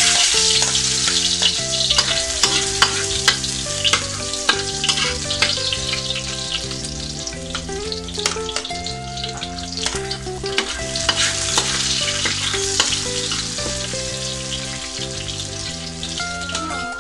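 Minced garlic sizzling in hot cooking oil in a wok, the sizzle starting suddenly as it is scraped in off a plate with a spoon, with clicks of the spoon against plate and pan. Sliced red onion then joins the garlic in the oil.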